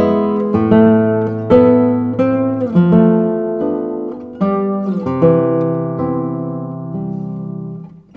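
Instrumental background music: gentle chords struck about once a second and left to ring, the last one held and fading away near the end.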